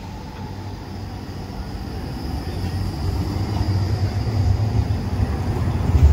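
A Bombardier Flexity tram approaching on street track, its low rumble growing steadily louder, with a faint steady high whine above it.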